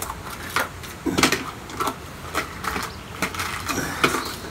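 Air-rifle pellet tins handled on a shooting bench: a string of irregular light clicks and knocks as they are picked up, set down and sorted.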